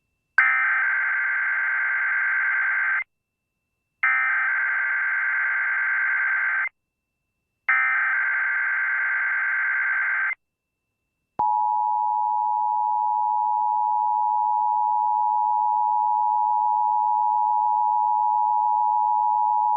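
Emergency Alert System SAME header: three bursts of warbling data tones, each about two and a half seconds long with a second's gap between them. About eleven seconds in comes the two-tone EAS attention signal, a steady dual tone held without a break. Together they open a Required Monthly Test broadcast.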